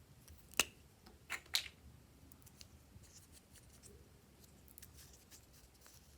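Glossy slime being worked by hand, giving short, sharp sticky clicks and pops: a loud one about half a second in, two more about a second later, then faint scattered crackles.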